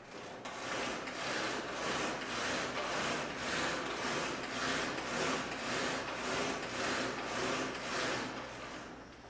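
VersaClimber vertical climbing machine in use: the pedals and handles run up and down the column in quick strokes, giving a rhythmic rasping whoosh about twice a second.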